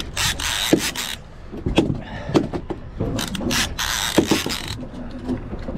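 Fishing reel ratcheting and clicking while a hooked albacore tuna pulls on the line, with two longer buzzing runs of about a second each, one near the start and one about halfway through.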